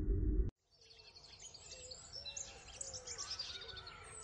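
A low rumbling drone that cuts off sharply about half a second in, then birds chirping and tweeting fade in: a dawn birdsong ambience.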